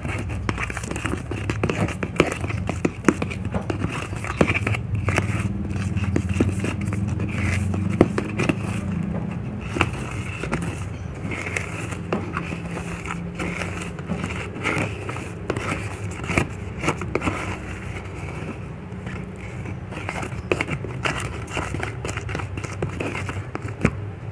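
Silicone spatula stirring and scraping a thick toothpaste-and-powder paste around a plastic bowl: continuous crackly scraping and squishing with many small clicks, over a steady low hum.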